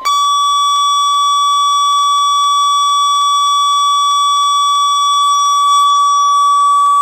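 NOAA Weather Radio warning alarm tone played through a weather radio receiver: one steady, very loud high tone of about 1,050 Hz, harsh with overtones, sounding during the station's required weekly test.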